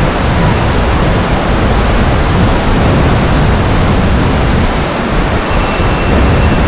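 Wind buffeting the microphone on the deck of a moving cruise ship: a loud, steady rush with a heavy, uneven low rumble.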